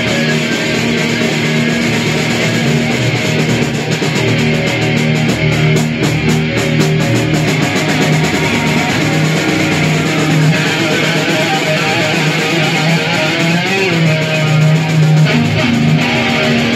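Loud distorted electric guitars played through amplifiers, holding heavy sustained chords that change every few seconds.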